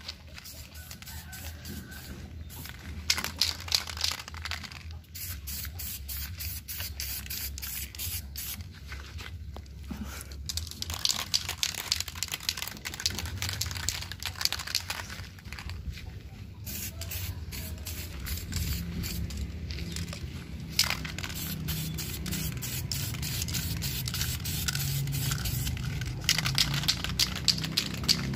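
Aerosol spray paint can hissing in repeated bursts with short pauses between them, as a coat of paint is sprayed on.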